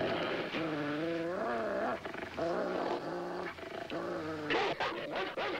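Aggressive dog snarling and growling in a run of long, rising-and-falling snarls, with a few short, sharp barks near the end.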